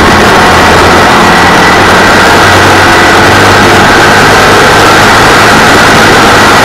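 Engine of a 602 cc dirt-track race car running hard, heard loud and steady from the onboard camera, mixed with road and gravel noise from the dirt track.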